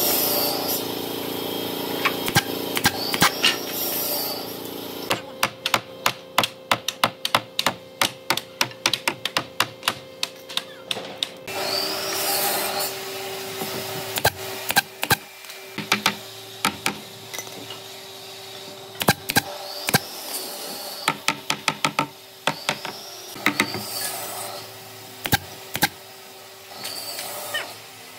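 Pneumatic brad nailer shooting nails into a hardwood board. First comes a quick run of about three sharp shots a second, then single shots a second or more apart, over a steady low hum.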